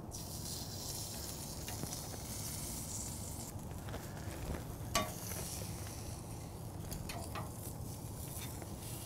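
Thick-cut bacon sizzling on the open grates of a Santa Maria grill over a walnut wood fire, a steady hiss broken by small crackles and one sharp pop about five seconds in.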